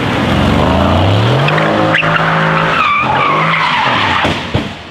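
Mercedes-AMG C63 S's twin-turbo V8 revving hard and climbing in pitch while the rear tyres squeal in a sideways drift, ending in a sharp thump a little over four seconds in as the sliding car hits a tree.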